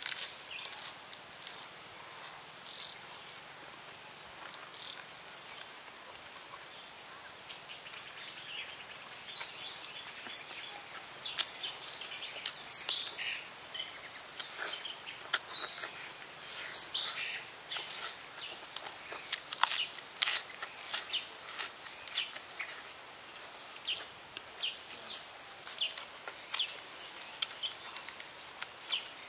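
Close-up eating sounds: crisp lettuce leaves being bitten and crunched and fried pork ribs chewed, a run of short crackly crunches and wet clicks, loudest in two bursts around the middle.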